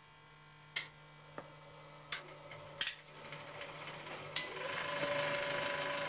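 1935 Klangfilm 35 mm cinema projector being started: several sharp clicks, then about three seconds in its mechanism spins up and settles into a steady whirring clatter with a faint whine.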